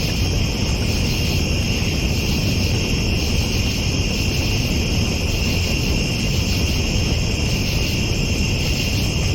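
A steady chorus of night insects such as crickets, several high continuous trills sounding together, over a steady low rumble.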